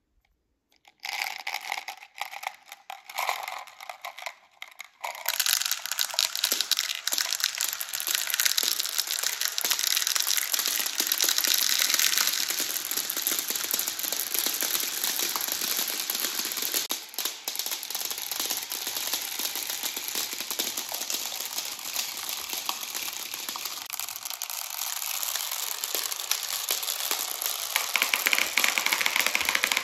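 Around a hundred light plastic pearl beads rolling down a plastic marble run, clattering against the track and each other: a few scattered clicks at first, then from about five seconds in a dense, continuous rattle.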